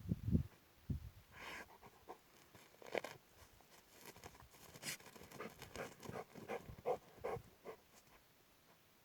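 A dog's paws scratching and scrabbling in short, irregular bouts, with some panting.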